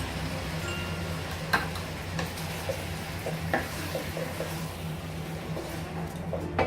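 Fried chicken wings being stirred and tossed in a pan of melted butter and hot sauce, the sauce sizzling, with a few sharp clicks of the utensil against the pan.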